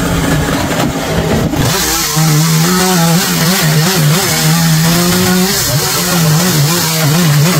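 Chainsaw engine running, its note wobbling up and down over and over from about a second and a half in, with a steadier stretch in the middle.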